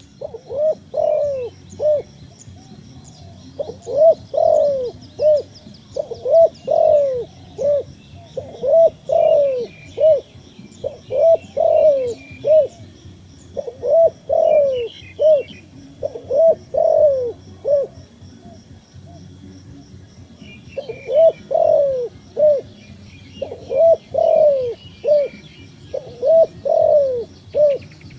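Dove cooing, with repeated phrases of several arching coos. A gap of about two seconds falls in the second half. Faint, rapid, high chirping from other birds runs behind.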